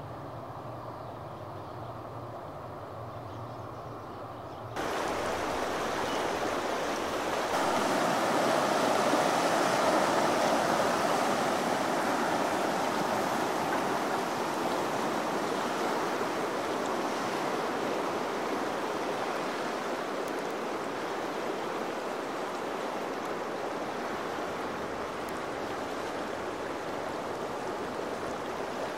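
Fast, turbulent river current rushing and churning close by, coming in suddenly about five seconds in, loudest a few seconds later, then easing slightly but continuing. Before it there is a quieter low, steady hum.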